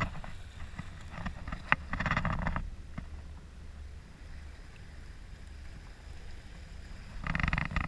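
Steady low rumble of wind and water, with a few short rustling bursts and one sharp click a little under two seconds in.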